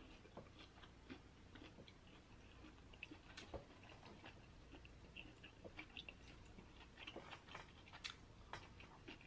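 Faint, scattered clicks and crackles of fingers peeling the shell off a boiled shrimp, then soft chewing as it is eaten near the end.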